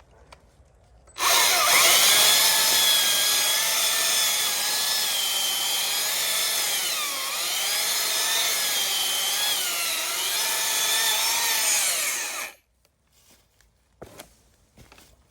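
Stihl MSA 300 battery-powered chainsaw starts suddenly about a second in and runs for about eleven seconds, its electric whine dipping in pitch several times as the chain bites into the wood, then stops abruptly.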